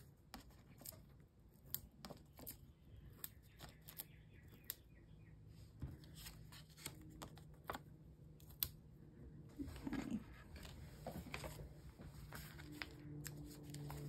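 Faint paper handling: small scattered clicks and light rustling as foam adhesive dots are peeled from their backing sheet and pressed onto small card squares.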